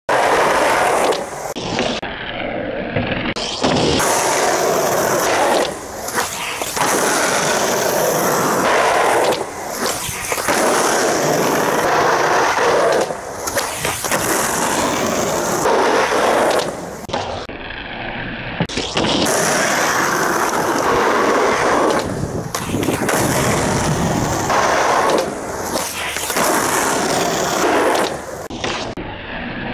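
Skateboard wheels rolling over rough asphalt, a loud steady rumble that dips now and then, with sharp clacks of the board popping and landing during flip tricks.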